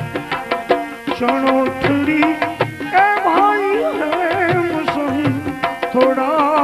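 Gujarati devotional bhajan music with steady tabla drumming under held melodic notes. From about three seconds in, a melody line of bending, wavering ornamented notes comes in.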